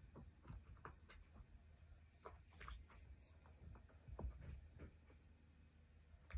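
Faint, irregular light clicks and taps of a Persian cat pawing at a plastic ball-track cat toy, with one sharper click near the end.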